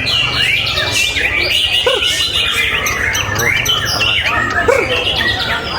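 Many caged songbirds singing at once: a dense, overlapping chorus of whistles, trills and chirps.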